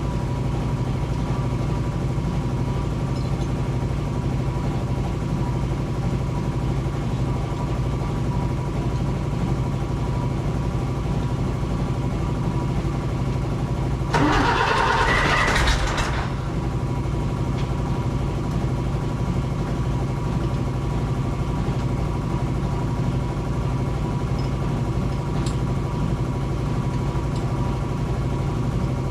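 An engine running steadily, with a louder noisy burst lasting about two seconds near the middle.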